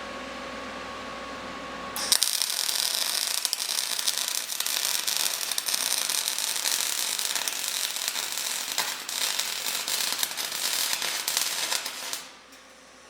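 A steady hum, then about two seconds in a MIG welding arc strikes and crackles loudly and steadily for about ten seconds before cutting off: welding a crack in a steel Jeep windshield frame over old braze.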